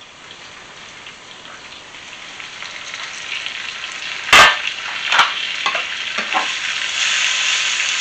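Pork ribs in tomato and onion sizzling in a frying pan, the sizzle growing louder as the pan is uncovered. A single sharp clack comes a little over four seconds in, followed by a few lighter knocks of a utensil against the pan as the ribs are stirred.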